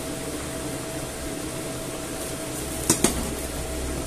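Steady kitchen hiss and hum from the pans on the cooktop, with two quick clanks of a metal spoon against a pan about three seconds in as fried potato cubes are scooped from the frying pan into the stew pot.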